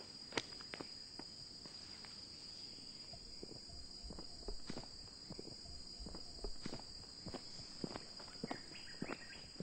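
Insects droning steadily on one high note, with irregular footsteps of people walking away.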